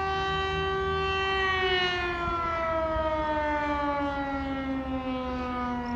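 Air-raid (civil defence) siren sounding a steady tone, then winding down, its pitch falling slowly from about a second and a half in. It is an air-raid alert warning people to take cover.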